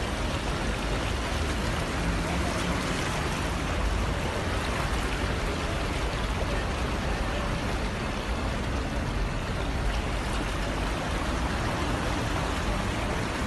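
Steady rush of floodwater, with a low rumble underneath.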